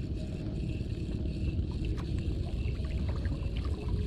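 Steady low rumble of wind and choppy water around a small boat at sea.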